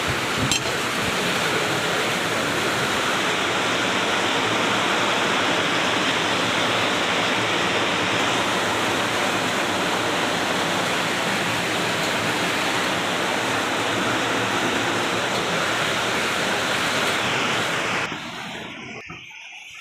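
Heavy rain pouring down in a storm, a dense, steady hiss that drops away sharply near the end.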